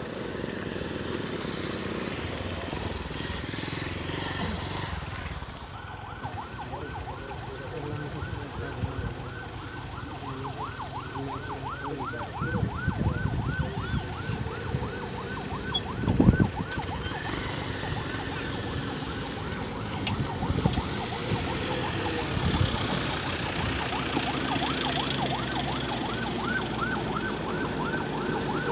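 An escort vehicle's siren yelping: a rapid wail sweeping up and down several times a second. It starts about five seconds in, over the running engines of motorcycles and pickup trucks on a gravel road. A loud bump comes near the middle.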